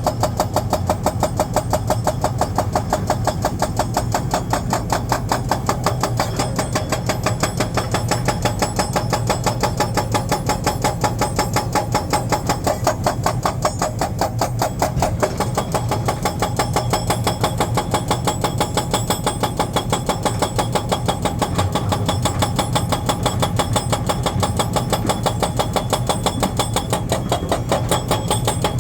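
Diesel engine of heavy earthmoving machinery running steadily, with a fast, even pulsing throb.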